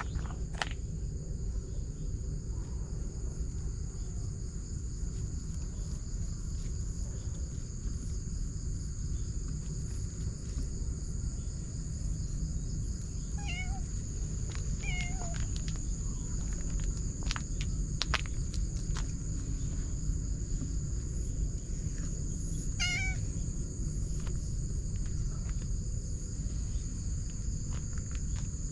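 A grey kitten mewing a few times: short, high calls spaced several seconds apart, over outdoor background noise.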